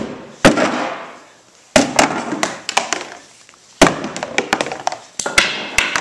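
Urethane-polymer motorcycle rear fender slammed repeatedly onto a concrete floor: four heavy impacts about one and a half to two seconds apart, each followed by a brief clattering ring-out. The fender survives the blows without breaking.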